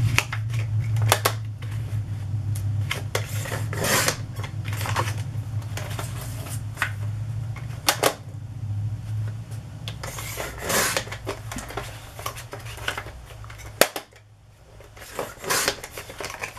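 Sliding paper trimmer cutting card stock: the blade carriage swishes along its rail about four times, between clicks and rustles as the card is lined up and moved. A low hum runs underneath and fades out about halfway.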